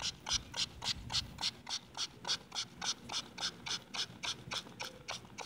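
Plastic trigger spray bottle squeezed over and over, about four to five short hissing sprays a second, spraying water onto a dug-up coin to wash the soil off it.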